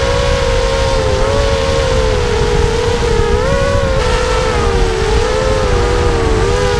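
FPV racing quadcopter's brushless motors and propellers whining, heard from the onboard camera, the pitch wavering up and down as the throttle changes, over a steady low rumble of wind.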